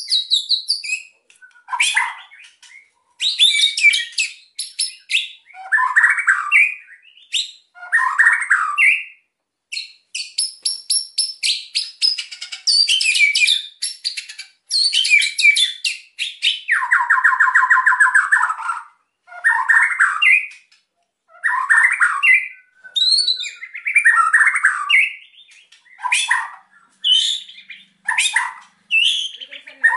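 White-rumped shama (murai batu) singing a loud, varied song in the fast, aggressive style: whistled phrases alternating with rapid rattling click runs (kretekan), broken by short pauses.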